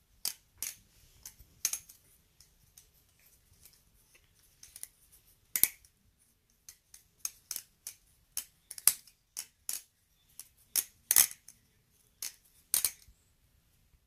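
Vantac Speeder balisong with titanium handles being flipped in one hand: an irregular run of sharp metallic clicks and clacks as the handles swing open and closed around the blade, about two a second, with a few louder clacks among them.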